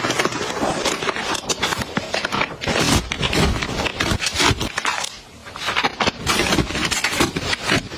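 Plastic packaging crinkling and rustling as packs of disposable bath towels are handled and set on a shelf, with a brief lull about five seconds in.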